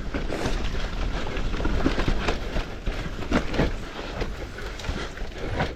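Electric mountain bike rattling and clattering down a rough, rooty trail: tyres rumbling over dirt and roots, with many quick knocks from the chain and frame.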